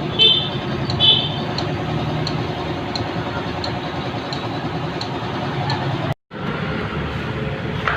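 Motor traffic with a steady engine hum and road noise. Two short high toots come in the first second, and the sound drops out for an instant a little after six seconds.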